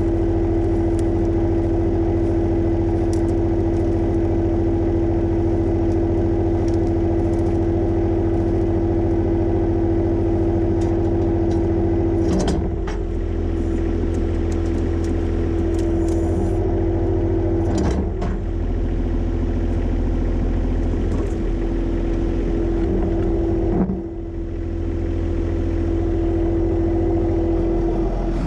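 John Deere 1025R sub-compact tractor's three-cylinder diesel engine running steadily, with a constant hum over the engine note. The sound dips and changes briefly three times.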